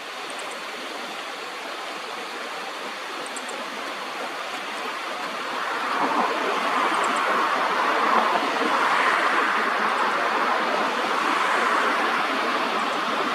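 Steady rushing of flowing water, like a stream, that grows louder about six seconds in. A few faint, short, high-pitched bird chirps are heard over it.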